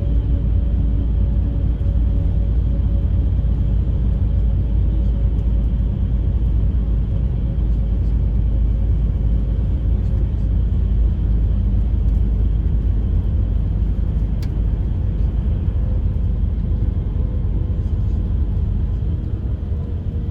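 Bus interior while driving: steady low rumble of the engine and tyres on the road, with a faint engine whine that slowly falls in pitch.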